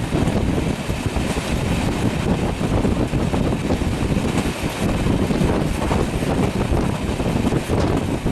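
A train passing close by: a steady, loud rumble of wheels on the rails, with wind buffeting the microphone.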